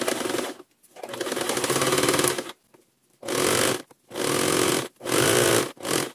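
Domestic sewing machine stitching a straight seam along the hem of a stretch-knit trouser leg. It runs in a series of bursts with short stops between them, the runs growing shorter toward the end.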